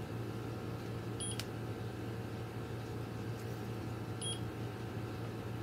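Steady low hum of the room, with two short high-pitched electronic beeps about three seconds apart.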